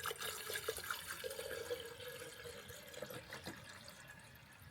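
Water pouring and dripping, with small splashes, gradually tapering off.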